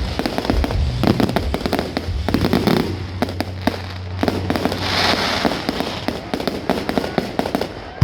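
Fireworks display: a dense, continuous run of crackling and popping shells, with a brief hiss about five seconds in.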